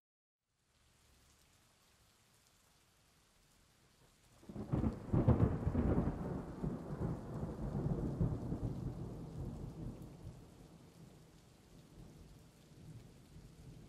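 A roll of thunder over steady rain. The rain is a faint hiss at first; about four seconds in a deep rumble swells quickly, then dies away slowly over several seconds.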